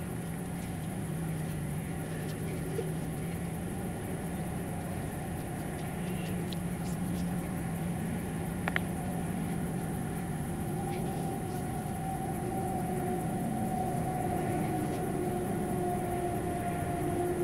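Night-time forest ambience: a steady high chirring of crickets over a low, steady rumble, with a few faint clicks.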